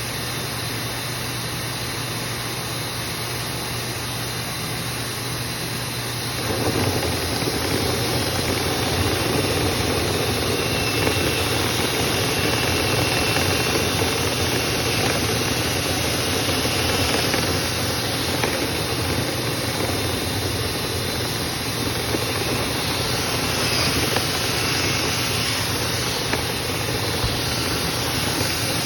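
Motor-driven dryer vent cleaning equipment running steadily, getting louder about six seconds in as more machinery starts up or works harder.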